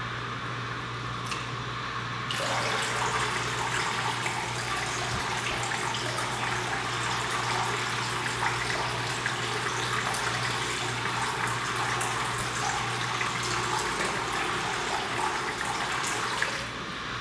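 A dense, even hiss like running water or static starts abruptly about two seconds in and stops suddenly near the end, over a constant low hum.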